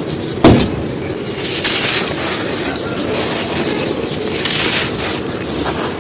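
Dry, pressed black sand shapes being crumbled, a continuous gritty crunching that swells and fades, with one sharp crack about half a second in.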